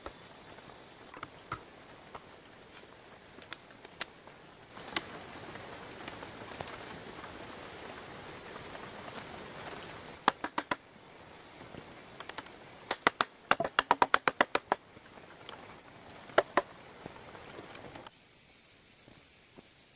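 Runs of sharp knocks at about five a second, the longest a little past halfway, with scattered single clicks and a stretch of steady hiss before them.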